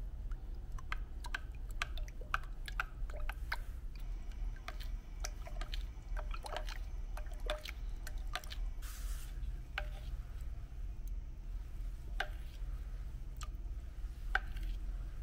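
Plastic spoon stirring welan gum thickener into thin water in a plastic measuring cup. The spoon clicks and taps against the cup many times in the first half, then only now and then, over light sloshing of the water. A steady low hum runs underneath.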